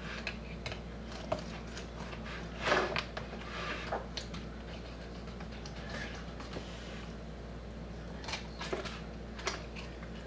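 Fillet knife cutting along a bluegill on a cutting board: scattered scrapes and clicks of the blade against scales, bone and board, over a steady low hum.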